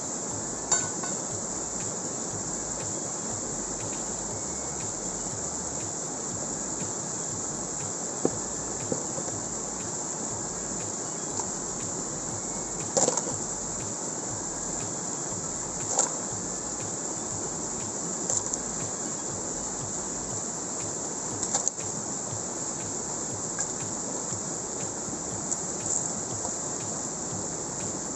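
Steady rush of a fast mountain stream, with a few sharp metal clinks and knocks of a steel pry bar against rock as a crevice is worked for gold.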